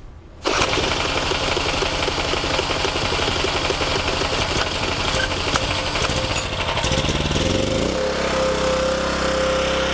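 Small portable gasoline generator engine starting with the choke off, catching about half a second in. It runs with no load, its speed rising and then settling into steady running with a high steady whine about eight seconds in.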